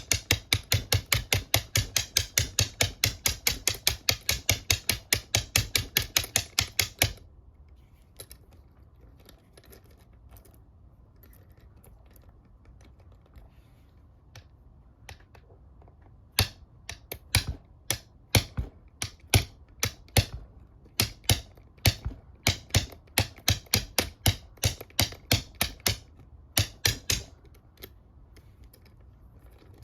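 A bump key in a Master Lock Pro Series 7050 padlock being rapped over and over to bump the lock. There is a quick, even run of sharp knocks at about four a second for the first seven seconds, a lull with faint small clicks, then a second, less even run of raps from about midway until near the end. The lock does not open: its security pins defeat the bumping.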